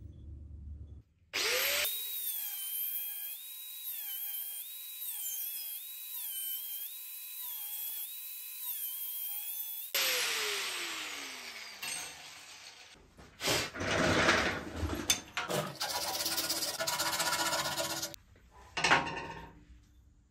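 Angle grinder with a thin cut-off disc trimming the edge of a pressed aluminium cap: a steady high motor whine whose pitch dips again and again as the disc bites into the metal. About ten seconds in it is switched off and winds down with a falling whine, followed by several seconds of harsh scraping as the cut edge is cleaned up.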